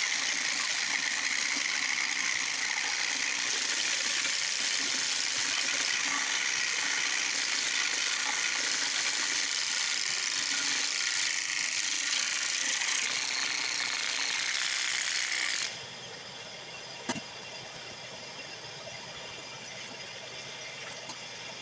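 Ryobi 1632 drum sander and shop vac running together, a loud steady hiss. About three-quarters of the way through the sound cuts off abruptly, leaving a much quieter steady noise and a single sharp click.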